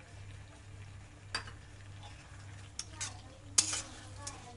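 Metal spatula stirring macaroni in tomato ketchup in a black karahi pan, with sizzling underneath and a few sharp clinks of metal on the pan, the loudest near the end. A steady low hum runs under it.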